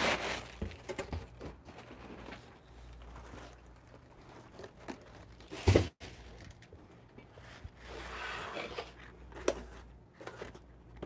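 Paper and corrugated-cardboard packing rustling and crinkling as a wrapped item is handled and unwrapped, with scattered small clicks and one louder knock about six seconds in.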